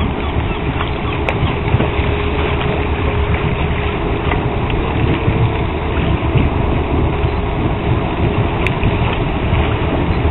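Engine of a small cargo ship passing close by: a steady low rumble with a faint steady hum running through it.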